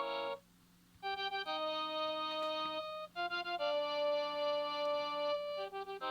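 Panasonic KX-TGA810 cordless phone handset playing a polyphonic ringtone. One phrase ends just after the start, and after a short pause a melody of held notes begins about a second in.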